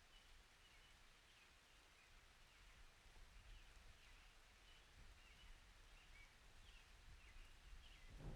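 Faint outdoor summer ambience: scattered soft bird chirps over a low, steady distant rumble.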